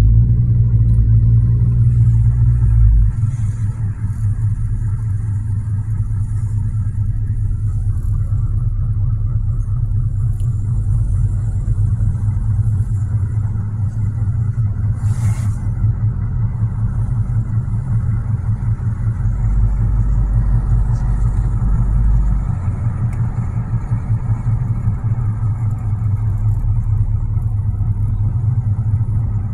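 Steady low rumble of car engine and road noise heard from inside a moving car's cabin. The rumble is heavier at the start and again about two-thirds of the way through, and a single short, sharp noise comes about halfway through.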